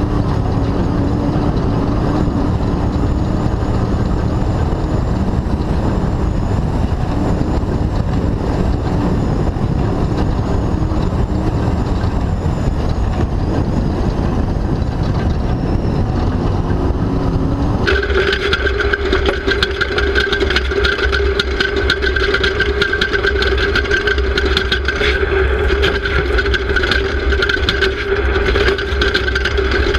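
Off-road race car's engine running hard under load. About eighteen seconds in the sound changes abruptly to a steadier, higher-pitched whine.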